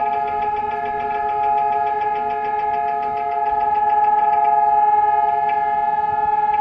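Israeli nationwide memorial siren sounding one long, steady chord of several held tones, with no rise or fall in pitch. This is the unbroken tone that marks the Memorial Day moment of silence. It grows slightly louder about two-thirds of the way through.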